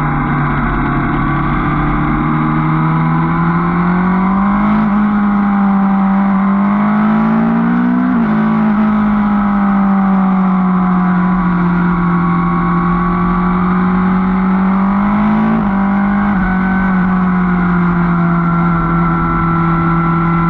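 Motorcycle engine running under way, its pitch climbing twice as it accelerates, then dropping sharply about eight seconds in and again a little past fifteen seconds before settling at a steady cruise.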